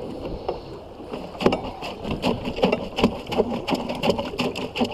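Rapid, irregular small clicks and knocks aboard a boat at rest, over faint water noise around the hull.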